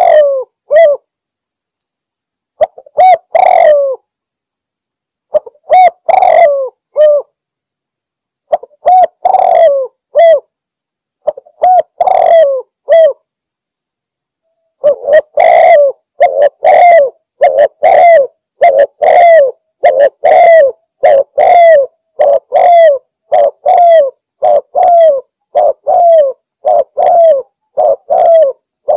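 Spotted dove (tekukur) cooing loudly in a rival-challenge call: several short phrases of repeated coos with pauses between them, then, after a short break about halfway through, an unbroken run of coos at about three every two seconds.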